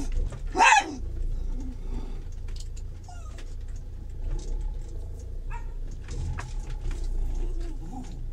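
A pet animal gives one short, sharp cry just under a second in, over the low, steady running of the motorhome's engine as it drives slowly.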